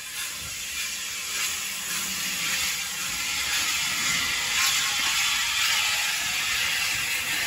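Bulleid Pacific steam locomotive drawing its train slowly closer, a steady hiss of steam with light mechanical rattling, growing louder as it nears.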